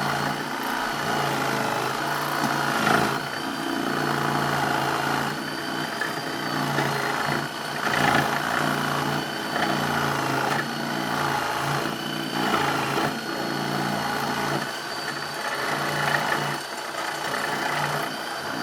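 An engine or motor running steadily, with a thin, slightly wavering high whine above it.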